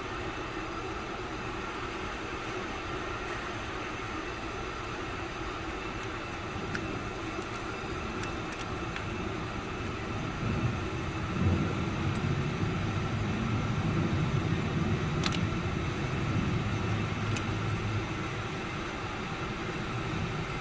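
Steady background hum with a few faint sharp clicks. A louder low rumble swells up about halfway through and eases off near the end.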